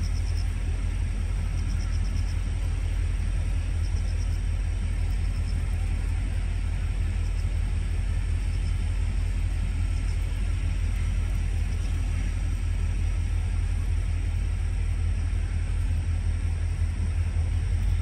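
Steady low outdoor rumble, with faint short high-pitched chirps repeating in the first few seconds.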